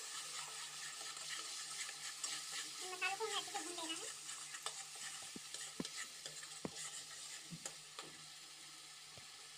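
Spiced masala frying and sizzling in hot mustard oil in a kadhai, stirred and scraped with a metal slotted spoon. The spoon clicks sharply against the pan several times in the second half, and the sizzle quietens after about eight seconds.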